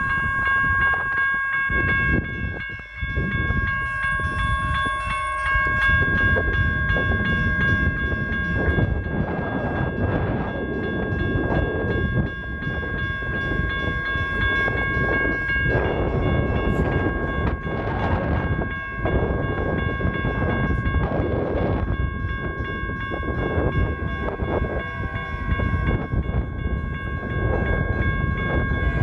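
A railroad crossing warning bell starts up and rings steadily and rapidly as the crossing activates. Underneath it is the rumble and rushing noise of an approaching train.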